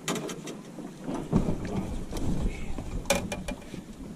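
Low rumbling noise on the microphone, like wind buffeting or handling, with sharp clicks and knocks right at the start and again about three seconds in.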